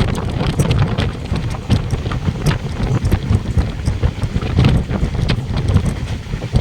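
Passenger train running: a heavy low rumble with scattered rattling and clacking of wheels and carriage, and wind buffeting the microphone.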